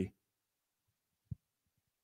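Near silence in a pause between spoken lines, broken once, about a second in, by a single faint, low thump.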